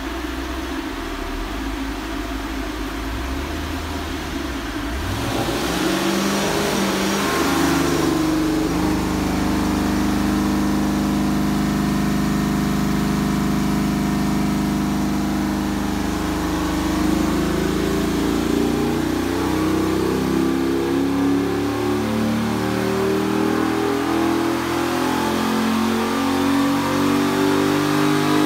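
Modified Chevrolet LS1 V8 (CNC-ported heads, COMP cam, FAST intake and throttle body) in a Gen 4 Camaro, run under load on a chassis dyno. The engine speed rises briefly about five seconds in with a rushing noise, holds steady for several seconds, then climbs slowly and steadily, getting louder toward the end.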